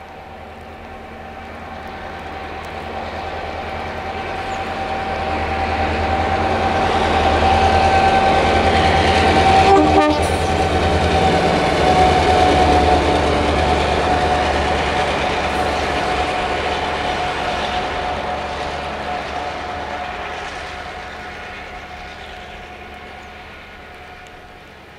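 EMD G26C diesel locomotive with a Roots-blown two-stroke engine passing with a passenger train. A deep engine rumble and a steady whine grow louder, peak about ten seconds in with a sharp knock, then fade as the whine drops slightly in pitch.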